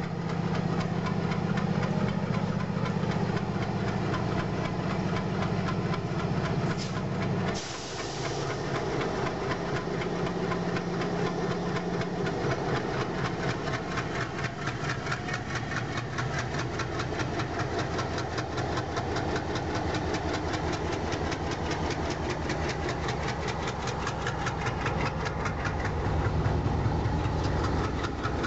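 An MLW MX636 diesel-electric freight locomotive with an ALCO V16 engine runs past under power. Its engine note drops about seven seconds in, with a brief hiss. After that, a rapid, even clatter continues as the locomotive and its freight wagons roll by.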